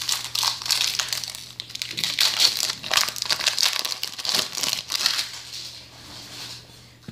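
Trading-card booster pack wrapper crinkling and rustling in the hands as a pack is handled and opened, in irregular crackly bursts that thin out after about five seconds.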